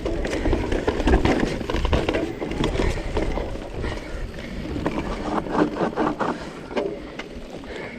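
Mountain bike riding over rough trail: tyres rolling and the bike rattling, with many sharp knocks and clicks from rocks and roots, and a low rumble of wind on the microphone. It eases off a little toward the end.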